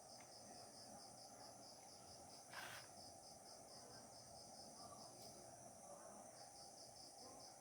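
Near silence: room tone with a faint cricket chirping, a rapid high-pitched pulse several times a second, and one soft brief rustle about two and a half seconds in.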